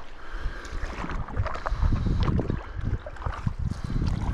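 Wind rumbling in gusts on the microphone over water sloshing around a canoe on a river, with a few light knocks.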